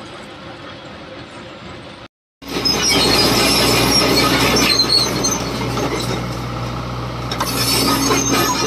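Kobelco excavator working: its diesel engine running with a steady low hum, with metallic scraping and squeals over it. About two seconds in the sound drops out briefly and comes back much louder.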